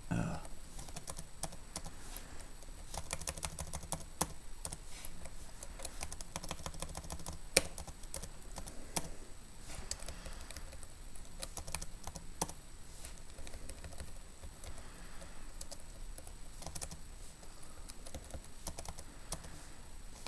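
Typing on a computer keyboard in irregular runs of key clicks, with one louder click about seven and a half seconds in.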